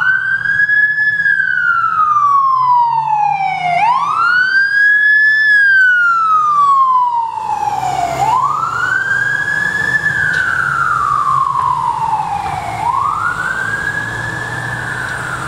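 Fire engine's siren wailing on a response run: each cycle climbs quickly in pitch, then falls slowly, about four times over the stretch, with a low engine rumble beneath. It grows a little fainter towards the end as the truck pulls away.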